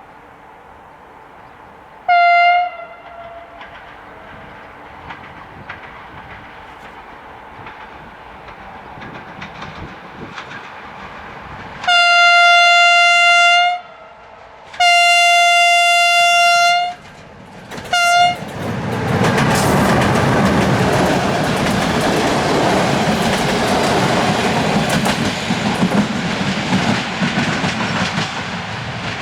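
Romanian EA1-class electric locomotive sounding its horn on one steady pitch: a short blast, two long blasts and a short blast. It then passes at speed with its train, wheels clattering rhythmically over jointed rails.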